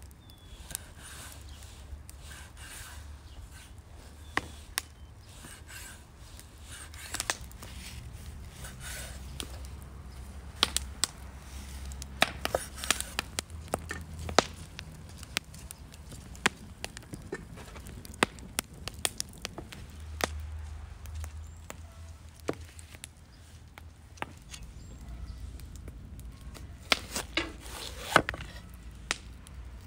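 A large kitchen knife cutting food on a thick wooden chopping block: scattered sharp taps and knocks of the blade on the wood, some in quick clusters, over a low steady rumble.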